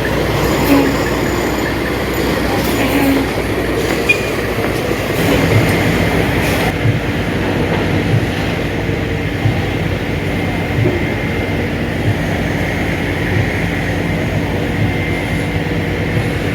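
Heavy diesel construction machinery running steadily with a deep rumble and a faint high whine. Scattered clanks and knocks come through in the first several seconds.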